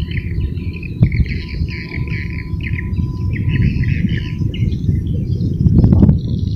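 Birds chirping in a quick run of short calls over a steady low rumble of wind on the microphone, with a sharp click about a second in and a louder knock near the end.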